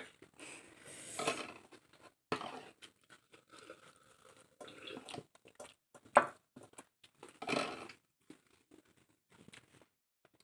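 Someone eating a meal of rice and chicken chilli: scattered clicks and short scrapes from the plate, with chewing. The sharpest click comes about six seconds in.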